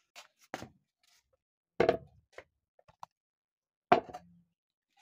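A few sharp knocks, like hard objects set down or handled. The loudest comes about two seconds in and another about four seconds in, with fainter clicks between.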